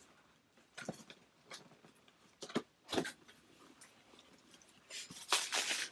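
Cardboard product box being opened by hand: its flaps scraping and the card crackling in a few short bursts, then a longer, louder rustle near the end.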